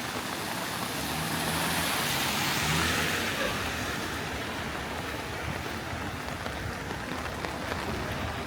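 Heavy rain hissing steadily on a flooded street, with a vehicle's tyres swishing through the water as it passes, swelling and fading in the first half.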